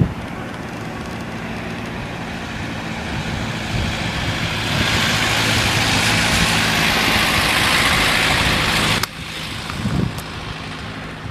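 Excavator engine running under a vibratory sheet pile hammer at work; about five seconds in a loud rushing noise from the hammer rises, then cuts off suddenly about nine seconds in.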